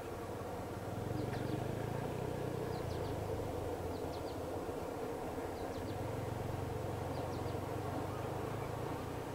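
Outdoor ambience: a steady low rumble and hum, with a bird's short high chirps in quick twos and threes repeating every second or so.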